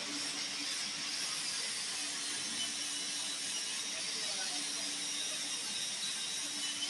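Steady machinery noise in a factory workshop: an even hiss with a low steady hum and faint high-pitched tones.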